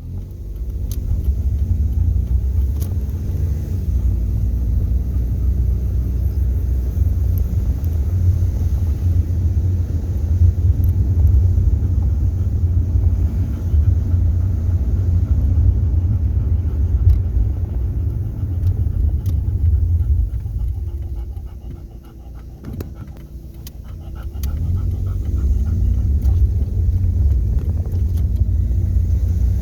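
Steady low rumble of a motor vehicle running, its engine note sliding up and down in pitch a few times and easing off briefly about twenty-two seconds in.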